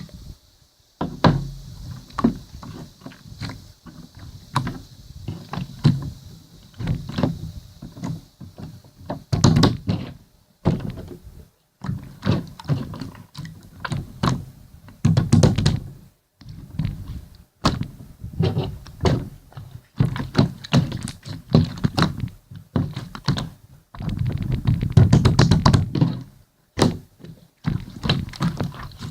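Irregular series of dull thumps and knocks, many strokes at an uneven pace with brief silent gaps between some of them.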